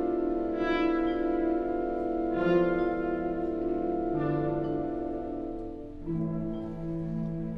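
Symphonic wind band playing long held chords led by the brass and horns, with new accented entries about every two seconds; the level dips briefly and a new, lower chord comes in about six seconds in.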